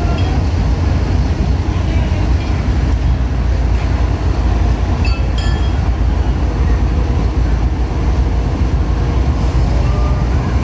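Pakistan Railways GEU40 diesel-electric locomotive running with a steady low rumble as it moves slowly along the track, with a few brief high squeaks about halfway through.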